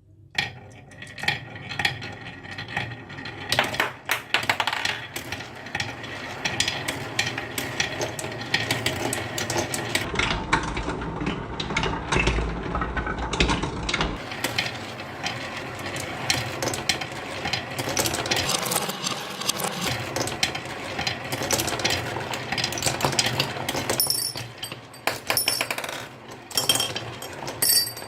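Marbles rolling and clattering down a wooden HABA marble run: a dense, continuous rattle of many small clicks and knocks.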